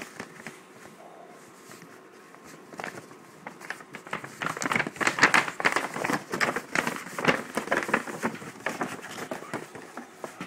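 Paper bag crinkling and crackling as a Great Dane puppy paws and bites at it: a few scattered crackles at first, then a dense run of crinkling from about four seconds in.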